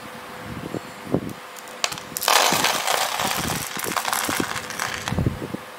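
Small black granules of model coal poured from a small bowl into the coal bunker of a miniature steam locomotive's tender: a few light clicks, then a dense rattle of the granules landing for about three seconds.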